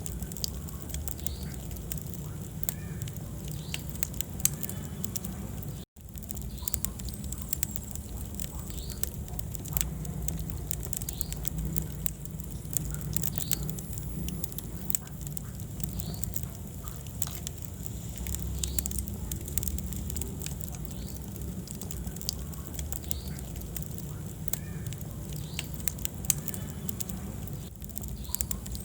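Wood fire burning in a fireplace: a steady low rumble of flames with many small crackles and pops scattered throughout. The sound cuts out for an instant about six seconds in.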